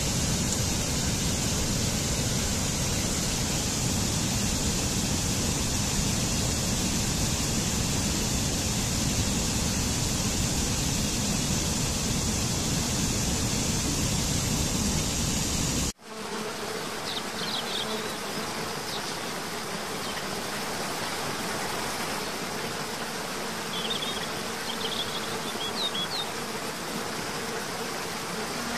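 Steady, even buzz of insects over a low outdoor rumble, which cuts off suddenly about halfway through. Quieter outdoor ambience follows, with a few brief high chirps.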